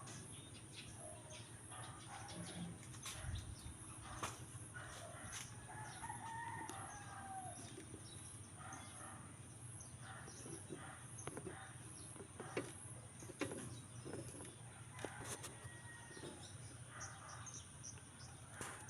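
A rooster crowing faintly, about six seconds in, among scattered short clicks and knocks.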